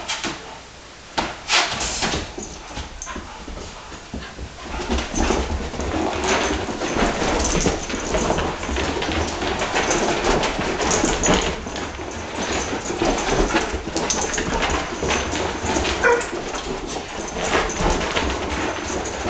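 Two dogs playing together, whining and yipping over scuffling on the carpet. A couple of knocks come first, then the noise runs thick and continuous from about four seconds in.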